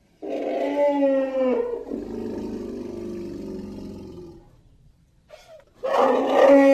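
Cartoon creature vocal effect, a voiced animal-like call: a held, pitched call that falls slightly at its end, then a lower, rougher sound that fades away, and a second pitched call starting near the end.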